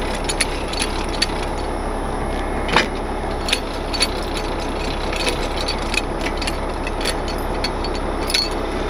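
Heavy wrecker's diesel engine idling steadily with the PTO engaged, while a hand-cranked support leg is wound down, giving scattered light clicks and knocks from the crank and leg.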